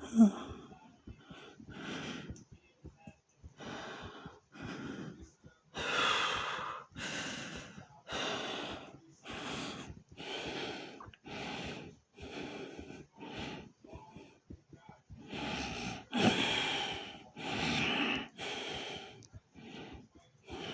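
A person breathing hard and fast, each noisy in-and-out breath following the last about a second apart. Just after the start, one brief, louder sound stands out above the breaths.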